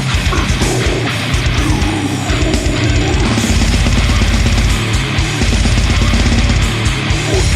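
Brutal death metal music with heavy guitars and fast, pounding drums. The kick drum turns into a continuous rapid double-kick roll about halfway through.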